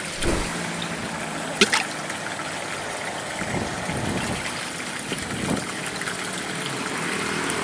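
Steady trickle of flowing water from an irrigation canal, with a brief sharp click about a second and a half in.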